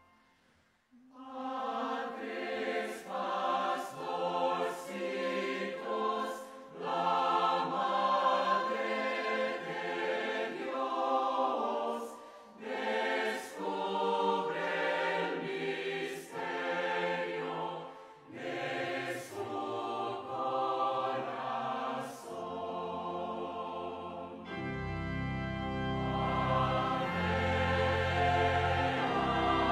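A choir singing a slow hymn in phrases, starting about a second in; deeper low notes join near the end.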